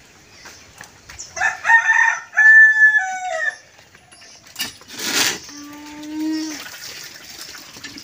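A rooster crowing once, starting about a second in: a two-part crow whose second part falls in pitch at the end. A couple of knocks and a short steady squeak follow.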